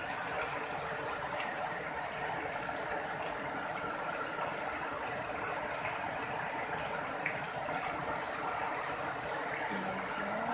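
Steady rush of heavy rain falling onto standing floodwater, with water gushing from a drain pipe through a wall.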